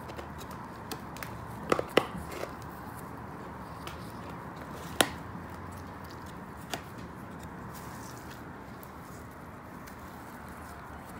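Gloved hands handling a plant and potting soil in a cut plastic-bottle planter: faint rustling with a few sharp clicks and taps, the loudest about two seconds in and again about five seconds in.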